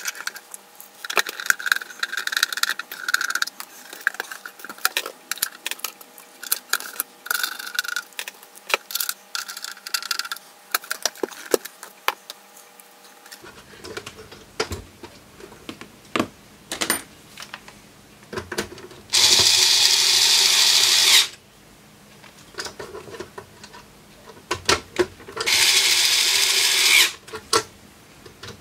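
Rapid clicks, taps and scrapes of a screwdriver working the metal case of a bench power supply, sped up four times. About two-thirds through comes a loud power-screwdriver burst a couple of seconds long, then a second shorter one near the end, driving the case screws home.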